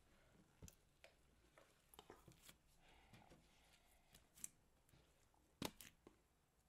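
A big mass of mixed slime being squeezed and stretched by hand, giving faint sticky crackles and small pops, the loudest a little over five and a half seconds in.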